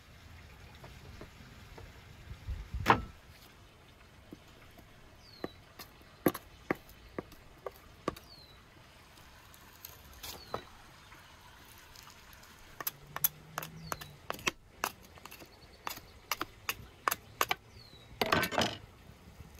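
Knife cutting and knocking on a wooden cutting board while raw lamb is butchered, with scattered sharp taps and a loud thump about three seconds in, and a dense run of knocks near the end. Faint short falling chirps recur in the background.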